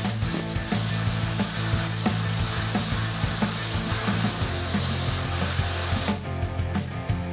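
Handheld plasma cutter cutting sheet steel: a loud steady hiss that stops about six seconds in, over background music.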